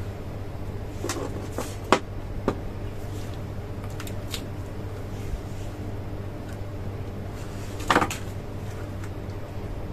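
Steady low electrical hum from the switched-on refrigeration test bench, while the controller's start delay holds the compressor off. A few light clicks and a louder knock about eight seconds in.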